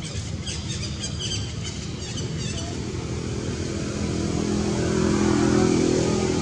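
An engine running steadily, swelling louder about two-thirds of the way through, with a series of short high chirps in the first couple of seconds.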